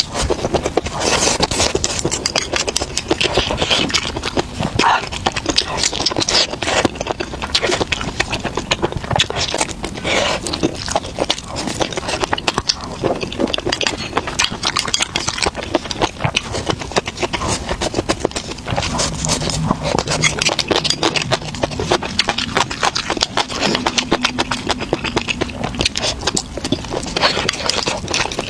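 Close-miked eating: dense crunchy chewing and biting, many quick crackles one after another, as of crisp fried food being chewed.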